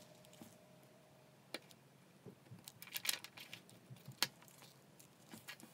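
Faint handling noise as the trigger switch assembly of a cordless impact driver is picked up and held on a wooden bench: scattered small plastic clicks, a short rattling clatter about three seconds in, and sharper clicks about a second and a half in and again around four seconds.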